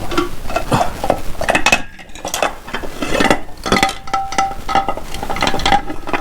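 Small metal parts and hand tools clinking and knocking together as they are handled, an irregular run of light clicks and scrapes.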